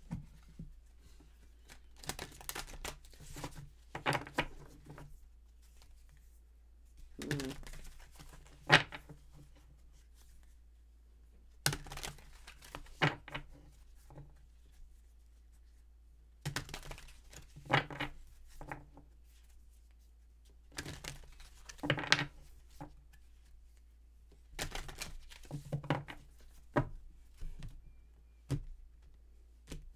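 Tarot cards being handled, shuffled and laid down on a wooden table: short bursts of papery rustling and card clicks with soft taps on the tabletop, coming every couple of seconds.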